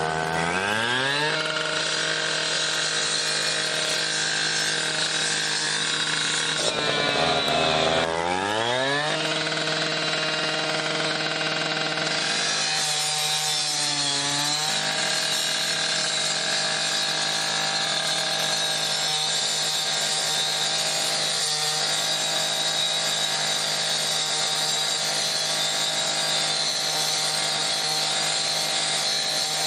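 Husqvarna gas-powered cut-off saw's two-stroke engine revving to full throttle as its rescue blade cuts through a metal door frame. The engine speed dips and climbs back about seven seconds in, and wavers briefly around thirteen seconds as the blade bites, then holds steady under load.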